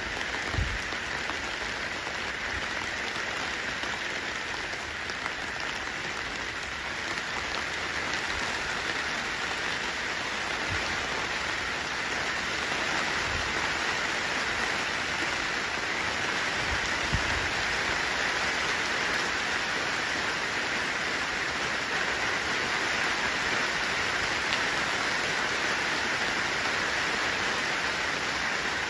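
Steady rain falling, an even hiss that grows slightly louder partway through, with a couple of soft low thumps.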